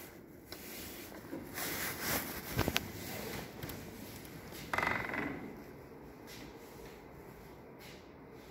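Wooden doors being pushed open and passed through, with rubbing and scraping, two sharp knocks a little under three seconds in, and a short buzzing rattle about five seconds in.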